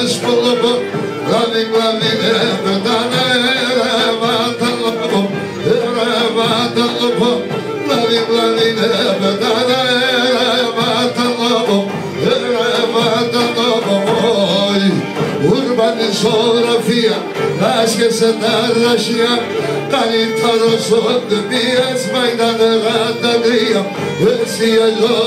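Live Pontic Greek folk music: a bowed Pontic lyra (kemenche) plays a steady, wavering melody, a large double-headed daouli drum keeps the beat, and a man sings through an amplified microphone.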